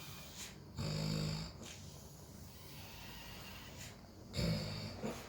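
Snoring: two loud snores about three and a half seconds apart, each lasting under a second.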